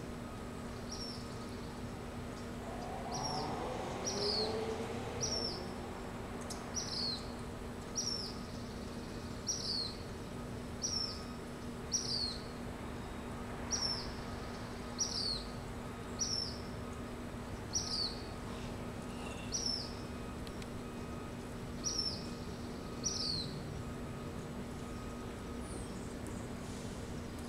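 A bird calling again and again, short high chirps that fall in pitch, roughly one every second and a half, stopping a few seconds before the end. A steady low hum runs underneath, and a brief rising sound passes about four seconds in.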